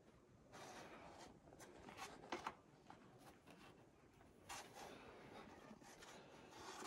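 Near silence: faint breaths of a climber hanging under a sandstone roof, with a few soft scuffs of hands and shoes on the rock.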